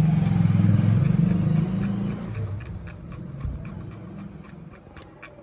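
A copper track on an amplifier circuit board being scraped through by hand, a rough low scraping for about two and a half seconds that then fades away. A steady light ticking, about four ticks a second, runs underneath.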